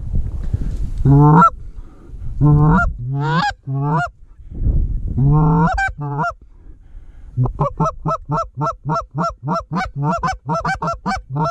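Goose honking: a few long, rising honks, then from about seven seconds in a fast, even run of short clucking honks, about three a second. A low wind rumble underlies the first half.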